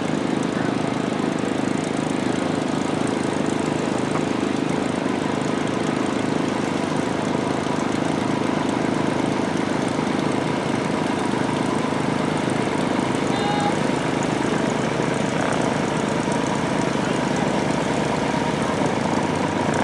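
Propeller airplane's piston engine running steadily at low power as the plane taxis, an even drone with no change in pitch.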